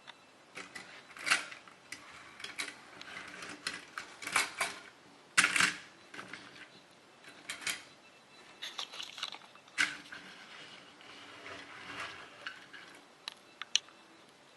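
Small toy cars and a toy truck being handled, giving irregular clicks and clattering of small hard toy pieces knocking together. The loudest clack comes about five seconds in.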